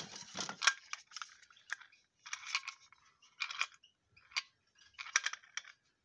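Small plastic bird drinkers clattering and clicking as they are handled and set down, in about six short bursts with pauses between.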